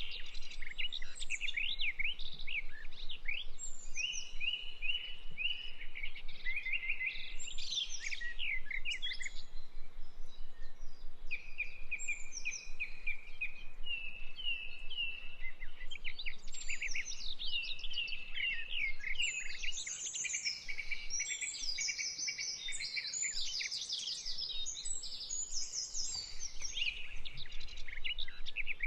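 Several songbirds singing and calling over one another: quick chirps, down-sweeping whistles and buzzy trills that run on without a break.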